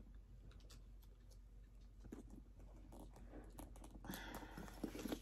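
Faint scattered clicks and rustling of a purse strap's metal clasps and hardware being handled and hooked onto a handbag, with a slightly louder bout of handling about four seconds in.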